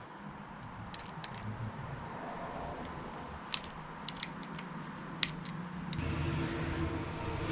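Small sharp clicks and light rattles of plastic and metal phone-mount parts being handled and fitted together. About six seconds in, a steady low hum rises underneath.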